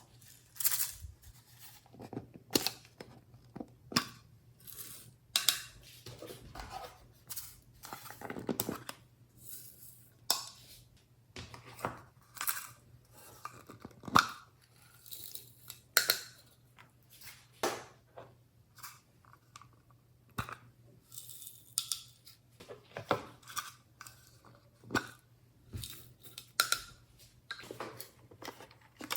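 Hands working glossy slime, giving irregular sticky pops, clicks and crackles, roughly one or two a second.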